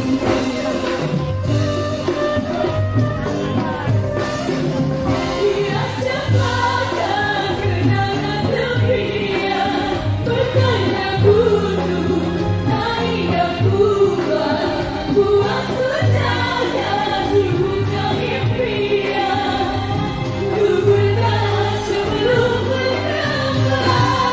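A group of male and female singers singing a Malay-style pop song together and in turns over a band backing with a steady bass beat.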